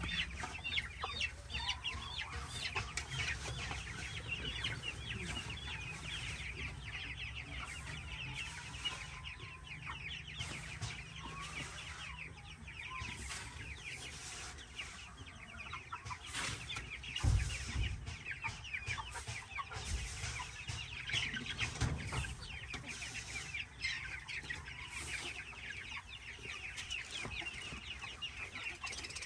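A flock of chickens clucking without a break, many birds calling over one another. A few low thumps cut in, the loudest about seventeen seconds in and again near twenty-two seconds.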